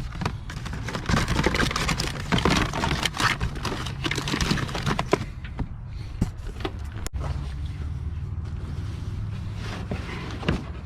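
Small objects being handled and rummaged through in a box: quick clicks, knocks and rustles of plastic and packaging, busy for the first five seconds and sparser after, over a steady low hum.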